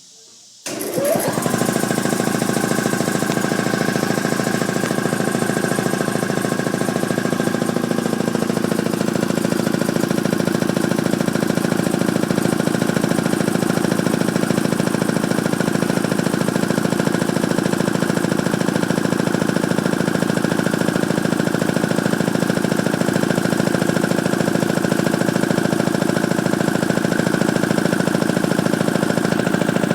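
Ingersoll-Rand T-30 two-stage reciprocating air compressor starting up at the switch, with a brief rising whine as it spins up, then running steadily with a rapid pulsing beat as it pumps toward full pressure.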